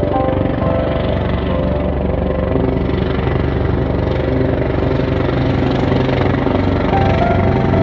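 Search and rescue helicopter flying in to land, its engines running and its rotor blades beating steadily as it approaches.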